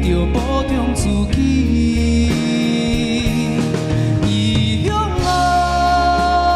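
A man sings a Taiwanese Hokkien ballad into a microphone over band backing music, with a long held note near the end.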